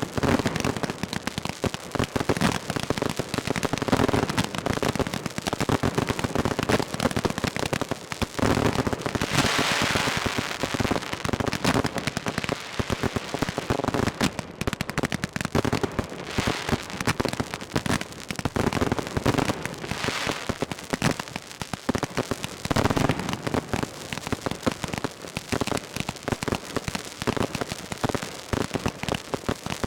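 Aerial fireworks display going off in a dense, continuous string of bangs and crackling, with a stretch of hissing crackle about ten seconds in.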